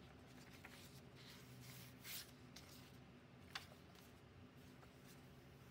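Faint rustle of paper pages being turned by hand in a junk journal: a soft swish about two seconds in and a short tick a little later, over near silence.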